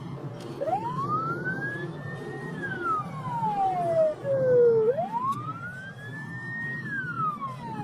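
Police car siren on wail, heard from inside the car over road noise: two slow cycles, each rising for about two seconds and then falling away for about two and a half.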